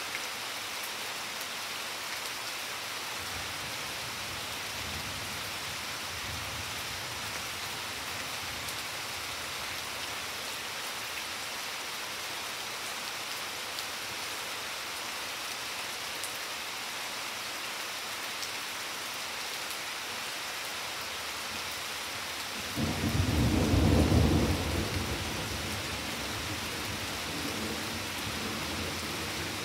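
Steady rain falling on garden plants and flagstones. About three quarters of the way through, thunder breaks in suddenly as a loud low rumble that peaks within a second or two, then trails off under the rain.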